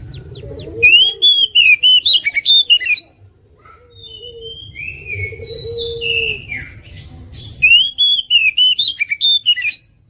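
Oriental magpie-robin (kacer) singing loudly. Two bursts of rapid, varied whistled notes come about a second in and again near the end, with softer slurred whistles between them.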